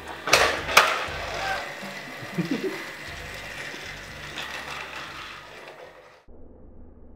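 Plastic toy mechanism of a Thomas & Friends TrackMaster Dragon Escape train set: two sharp clicks about half a second apart near the start, then a steady mechanical whir of the motorized toy engine's gears. The sound cuts off suddenly about six seconds in.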